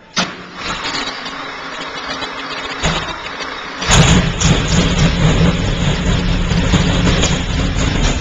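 Porsche 917's air-cooled flat-twelve racing engine being cranked over, then catching about four seconds in and running loudly. It is a long-dormant engine brought back to life after some 30 years.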